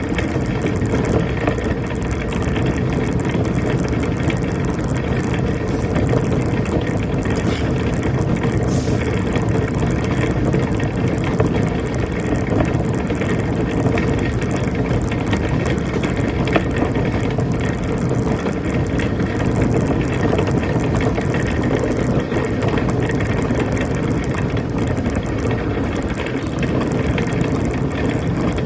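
Shopping cart rolling over pavement: a steady rattling clatter of wheels and wire frame.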